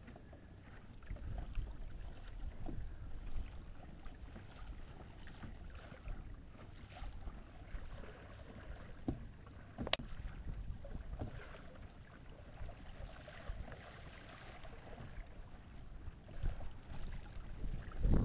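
Water lapping and splashing against a plastic kayak hull under way, with an uneven low rumble and scattered light knocks, the sharpest about ten seconds in.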